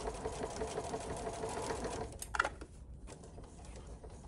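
Electric sewing machine stitching a seam at a steady speed for about two seconds, then stopping. Just after it stops there is one brief sharp sound, the loudest moment.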